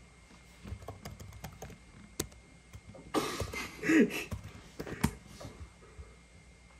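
Typing on a computer keyboard: scattered, irregular key clicks as a name is typed into a search box. About three seconds in there is a louder breathy noise with a brief voice sound.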